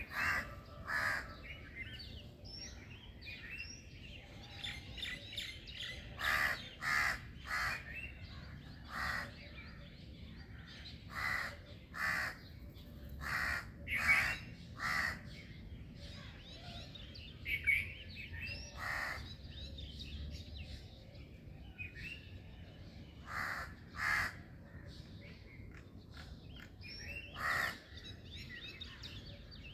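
Morning bird chorus: small birds chirping and twittering throughout, with about twenty short, loud, rough calls, many in quick pairs, scattered across it.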